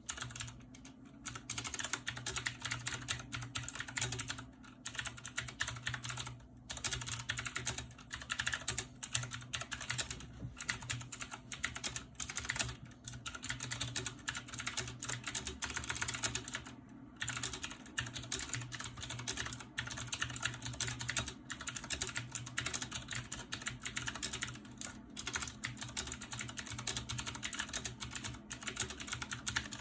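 Typing on a clicky mechanical gaming keyboard with blue-type click switches: a fast, continuous run of sharp key clicks with a few brief pauses, over a faint low hum.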